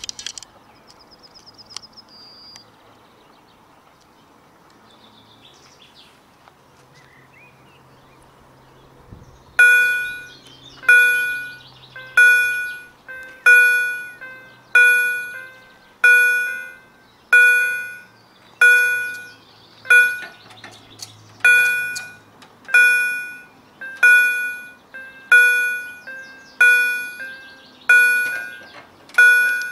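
Level crossing warning bell sounding from the pole loudspeaker, starting about a third of the way in and repeating a ringing strike roughly once every 1.3 seconds, each one fading before the next: the crossing's warning that a train is approaching. Before it starts, birds chirp faintly over a low hum.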